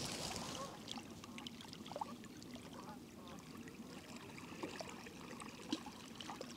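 Ducks quacking faintly over water lapping at the shore, with a few small ticks.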